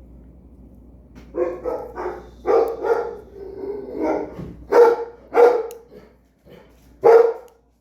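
Pet dog barking repeatedly: a run of quick barks, then three louder, spaced-out barks near the end.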